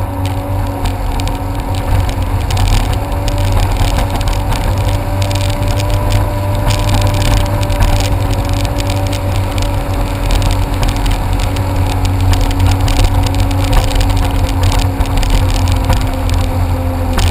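Jet ski engine running steadily at speed, its pitch holding nearly constant over a loud low rumble.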